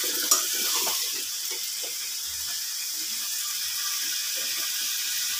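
Papaya pieces and spice paste sizzling steadily in a karahi over a gas flame as the masala is fried down, with a few knocks and scrapes of a spatula stirring in the first couple of seconds.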